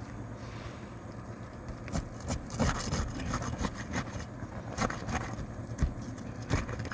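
Scattered knocks and scrapes of a hand tool prying under roof shingles to lift them free, over a steady low rumble.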